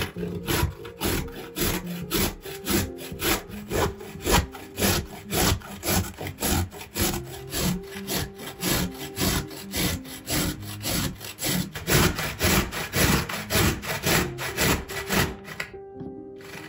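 Repeated rasping strokes, about two to three a second, over steady background music; the strokes stop about a second before the end.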